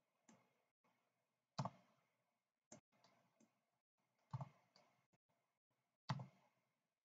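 Computer mouse and keyboard clicks: about seven short, scattered clicks on a quiet background, the three loudest about one and a half, four and a half and six seconds in.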